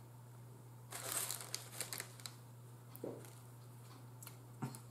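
Faint crinkling of food wrapping as a sandwich is picked up and handled, in a burst of about a second, followed by a few soft ticks.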